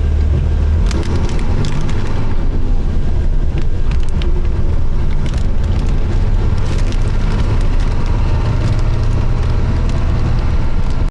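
Steady road noise inside a moving vehicle: a low engine and tyre rumble with scattered light rattles.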